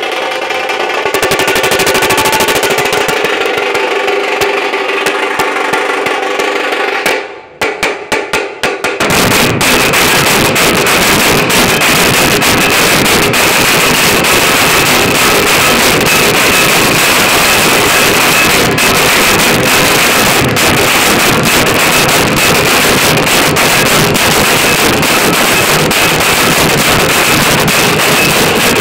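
A group of large dhol drums beaten with sticks. After a steady pitched sound in the first seven seconds, a few separate strokes come about seven seconds in, then the drums break into a loud, fast, dense rhythm that keeps on.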